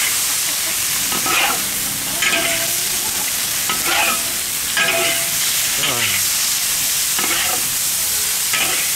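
Small river fish, chillies and scallions stir-frying in a wok over high heat: a steady loud sizzle, with a metal spatula scraping and turning the food roughly once a second.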